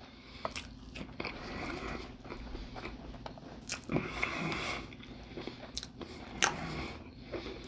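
Close-up mouth sounds of a person chewing a big bite of a chili-topped bratwurst on a bun. The chewing comes as irregular wet clicks and soft squelching, with no words.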